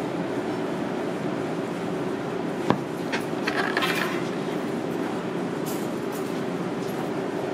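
Steady eatery background din with one sharp clink about two and a half seconds in, followed by a few light clinks and clatters of tableware.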